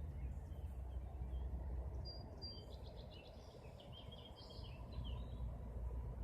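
Faint songbird chirps, a short run of high calls about two seconds in, over a steady low outdoor rumble.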